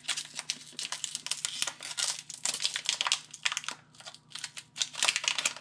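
Foil Pokémon booster-pack wrapper crinkling and trading cards being handled and laid down, in irregular crackling spells with a short lull about four seconds in.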